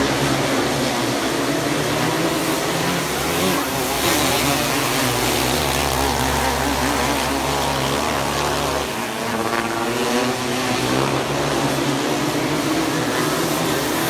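A pack of winged outlaw dirt karts racing, several small engines running hard together. Their pitch keeps rising and falling as they accelerate and back off.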